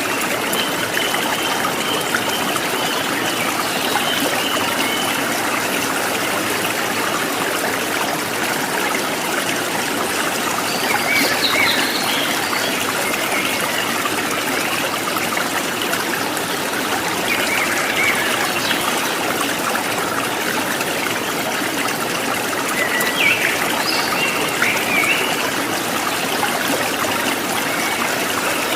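Running water of a stream trickling steadily, with a few faint bird chirps now and then.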